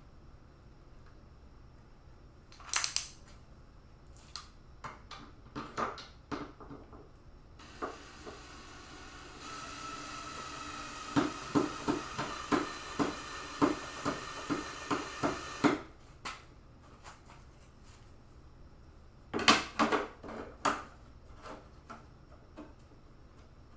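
Metal parts clattering and clicking as they are handled, then a cordless drill runs for about eight seconds driving a screw through the fan into the board, with a rhythmic clicking about three times a second, and stops suddenly; more clatter follows.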